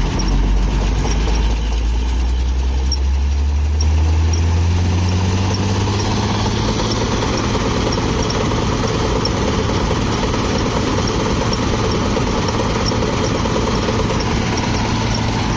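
Large engine of a wheat-harvesting machine speeding up over the first several seconds, then running steadily at the higher speed.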